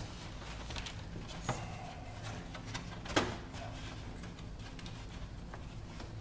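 Handling sounds as gloved hands press a Depron foam sheet onto a wing frame: scattered small ticks and rustles, with two sharper clicks, the louder one about three seconds in, over a steady low hum.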